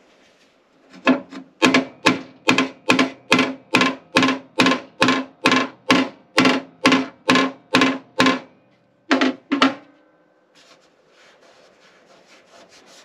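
A hammer strikes the sheet-steel inner fender apron of a 2006 Mustang GT about two dozen times at a steady three blows a second, each blow ringing, then twice more after a short pause. The blows are cold hammering to move the last of a collision kink out of the panel.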